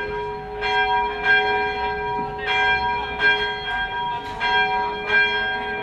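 A single 190-kilogram church bell being rung by hand, its clapper striking about six times at uneven intervals, each stroke ringing on into the next.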